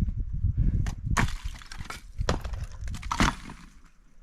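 Sledgehammer striking a cinder-block wall, about four sharp impacts with the concrete block cracking and breaking apart.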